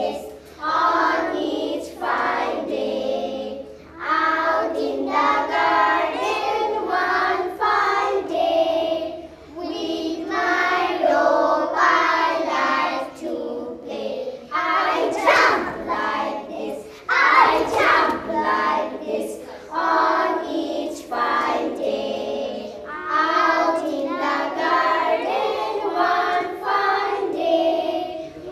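Young schoolchildren chanting a rhyme in sing-song voices, with a single child's voice and the group's voices taking turns.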